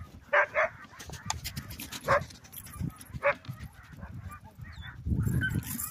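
A team of Alaskan sled huskies yelping in short, sharp cries while halted in harness: two quick yelps right at the start, then single ones about two and three seconds in. A low muffled rumble comes near the end.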